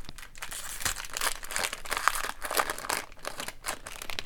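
Plastic-foil wrapper of a hockey card pack crinkling and crackling as it is handled and torn.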